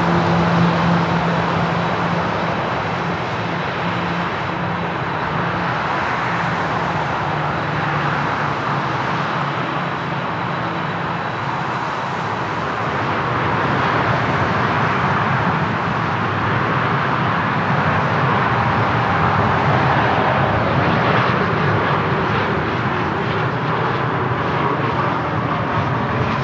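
Jet airliner engines running, a steady roar that swells about halfway through. A low steady hum under it fades out in the first half.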